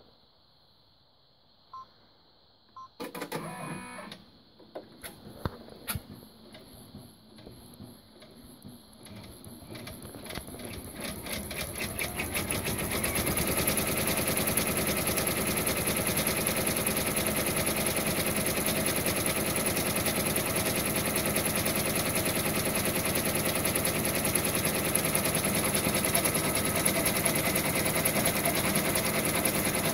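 Brother PR1050X ten-needle embroidery machine starting a design: a few scattered clicks and knocks about three seconds in, then stitching that speeds up over several seconds to a steady, fast stitching rhythm.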